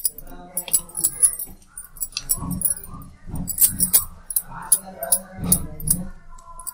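A steel spoon clinking and scraping on a ceramic plate while chocolate paste is spread on bread, with bangles jingling on the wrist; many light clicks and jingles come irregularly, with a few soft knocks.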